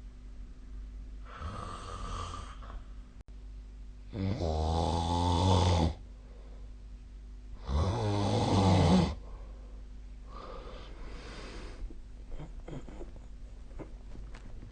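A sleeping person snoring: two loud, pitched snores about three and a half seconds apart, each lasting one and a half to two seconds, with softer breaths before and after them.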